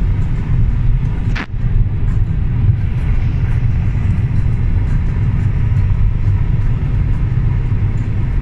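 Steady low rumble of road and engine noise inside a car's cabin at motorway speed, with one short knock about a second and a half in.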